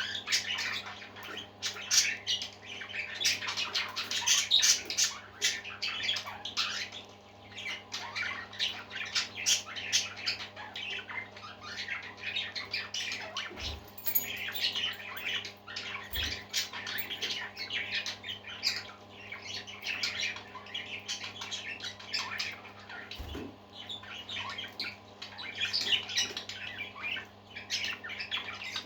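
A flock of parakeets chirping, chattering and squawking without a break, many short calls overlapping. A steady low hum runs underneath, and a few soft low thuds come through about halfway in and again later.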